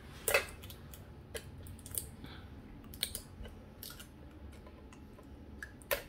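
Short, sharp crinkles and clicks, roughly one a second, as fingers pick at the plastic wrapping of a small Pokémon tin; the loudest come near the start and just before the end.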